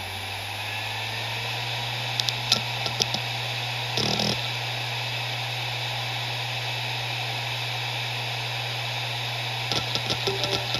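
Maxtor MaXLine Plus II 250GB 7200 RPM hard drive spinning at full speed with a steady hum and hiss. Clusters of sharp head-seek clicks come about two seconds in, a short rattle of seeking comes around four seconds, and another run of clicks comes near the end.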